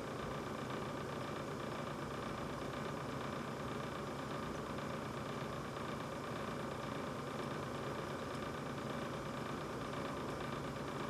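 Brand-new GE refrigerator running with a steady hum, a few constant tones over a low whir, without change or break.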